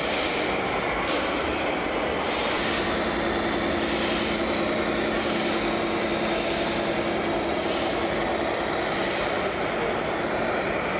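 A vehicle or machine running steadily, with short hissing puffs about once a second.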